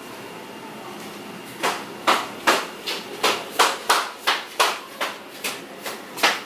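A run of about a dozen sharp knocks, like hammer blows, at a steady pace of two to three a second. They start about a second and a half in and last to the end, over a faint steady room hum.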